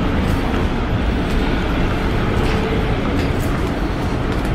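Steady low rumble of a car ferry's engines and hull underway, heard inside the passenger cabin, with a few faint clicks.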